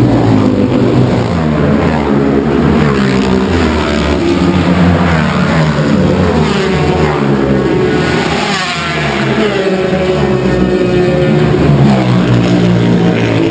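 Racing motorcycles going past at speed, their engines revving hard and changing pitch as they accelerate and shift. One bike passes close about eight seconds in, its pitch rising and then dropping as it goes by.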